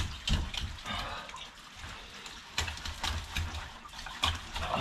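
Filleting a large raw fish with a knife on a wooden cutting board: wet cutting and handling sounds with several short, sharp knocks.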